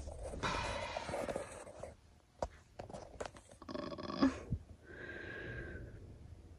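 Soft breathy sounds, nervous sighs or whispered breaths, with a few light clicks about halfway through and a short breathy higher note near the end.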